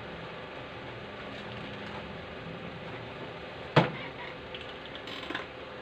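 A single sharp knock, like a hard object set down or struck on a wooden workbench, about four seconds in, followed a second later by a few faint clicks, over a steady low background hum.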